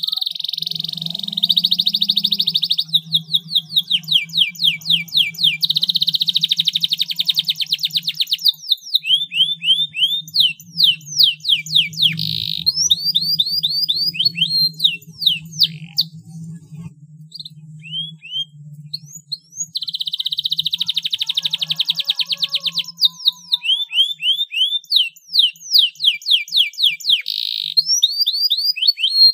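Domestic canary singing a long, loud song: fast rolling trills near the start, about six seconds in and about twenty seconds in, with runs of quick upswept whistled notes between them.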